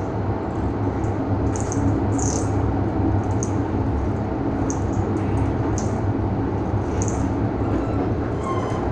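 MTR M-Train electric multiple unit running, heard from inside the passenger car: a steady low rumble of the train under way, with brief high-pitched squeaks recurring every second or so.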